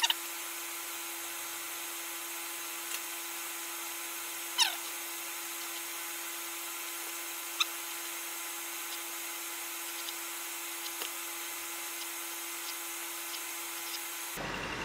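Steady low background hum with hiss, a short falling squeak about four and a half seconds in and a few faint ticks; the hum cuts off just before the end.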